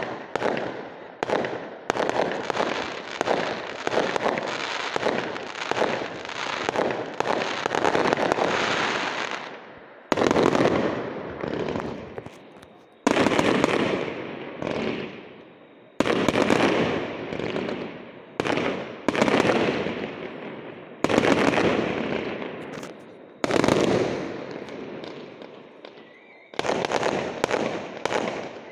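Aerial fireworks display: a rapid string of shell bursts, then single heavy bursts every few seconds, each dying away in a long fading tail. Another quick string of bursts comes near the end.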